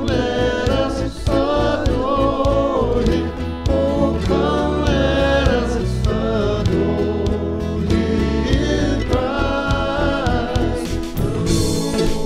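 Music: a group of singers performing a gospel worship song with guitar accompaniment.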